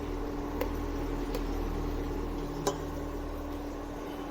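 Pot of star gooseberries and sugar syrup simmering on low heat, with a few faint ticks over a steady low hum.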